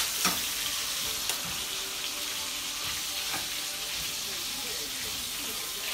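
Sausages sizzling in a frying pan, a steady hiss, with a few faint clicks.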